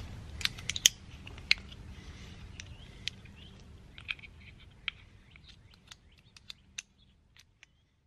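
Plastic tire levers clicking and snapping against each other as they are handled, over a low steady hum. The clicks are irregular, loudest in the first couple of seconds, then thin out and fade away near the end.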